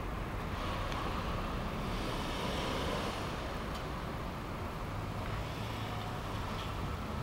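Steady road traffic noise from cars passing on a road, with low wind rumble on the microphone.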